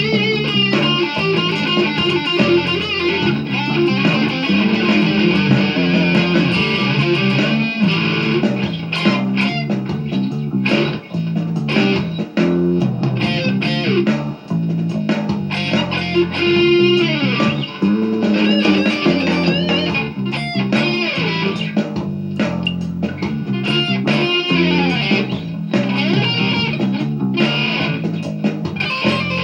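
Instrumental rock music led by electric guitar, with bending, sliding notes over a bass line.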